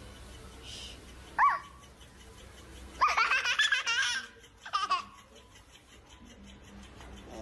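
High-pitched laughter, one peal a little over a second long about three seconds in, with a short squeak before it and another brief burst just after.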